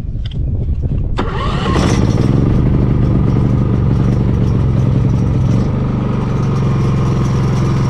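WEN 3800-watt inverter generator's small gasoline engine starting: a click and rumble, then the engine catches about a second and a half in and runs up to a steady drone, easing slightly lower near the end as it settles.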